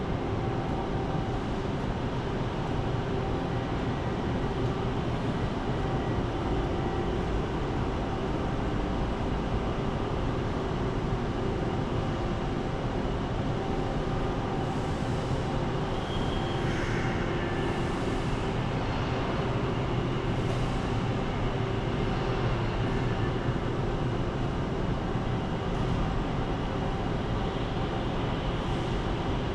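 Steady machine noise with a low, even hum, holding at one level throughout, with a few faint higher hisses in the middle.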